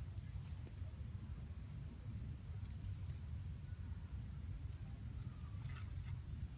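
Outdoor ambience: a low, steady rumble of wind on the microphone under a thin, steady, high insect drone, with a brief rustle about five and a half seconds in.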